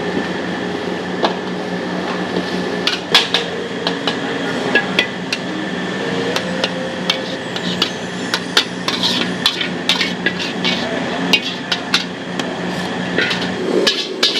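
Metal spatula or ladle clanging and scraping against a wok in irregular sharp strikes over a steady hum, as noodles are stir-fried. The strikes come thick from about three seconds in.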